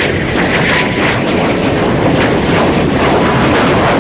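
Loud, steady jet engine noise from a Northrop F-5 fighter jet taking off.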